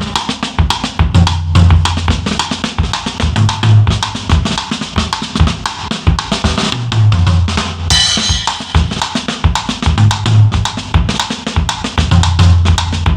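Drum kit played in a steady groove: bass drum, snare and quick cymbal strokes, with a cymbal crash about eight seconds in.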